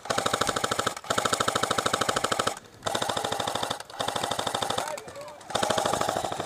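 KWA ERG airsoft electric rifle firing on full auto: about five long bursts of rapid clicks with the gearbox whine under them, each about a second long with brief pauses between.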